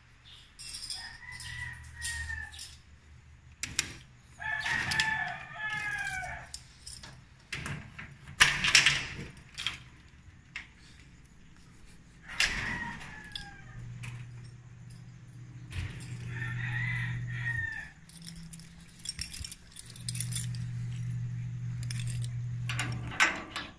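Roosters crowing about four times, each crow a second or two long, among sharp clicks and rattles of keys and a lock being worked. A low steady hum comes in twice during the second half.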